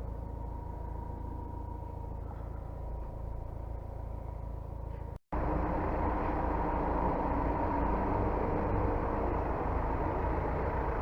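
Kia Carens II diesel engine idling steadily. The sound drops out for an instant about five seconds in and comes back louder.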